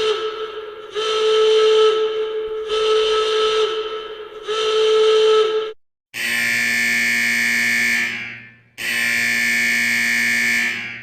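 An alarm horn sounds in repeated blasts about every second and a half to two seconds, each dipping in pitch as it ends. About six seconds in it cuts off and a harsher electric alarm buzzer takes over, sounding in blasts of about two seconds with short breaks.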